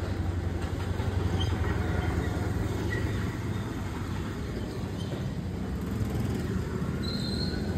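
Steady low rumble of a motor vehicle on the road, a little louder in the first few seconds.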